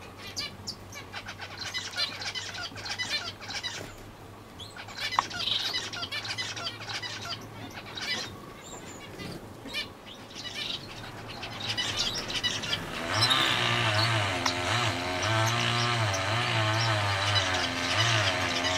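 Young society finches (Bengalese finches) in a straw nest giving a rapid, scattered stream of short high chirps. About two-thirds of the way through, louder background music comes in over the chirping.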